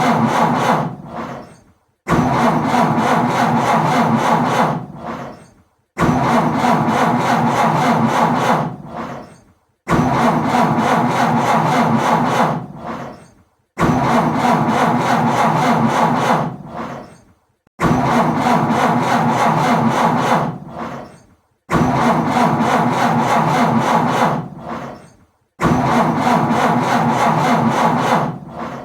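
A car's starter cranking an engine that will not catch: repeated start attempts, each a steady rapid cranking for about two and a half seconds that winds down to silence, then starts again, about seven times in all.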